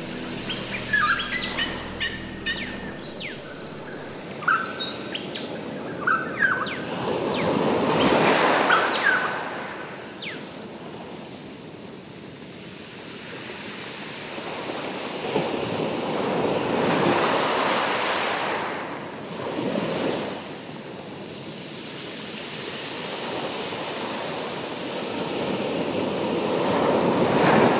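Ocean surf washing in slow swells about every nine or ten seconds, with short bird chirps over the first ten seconds.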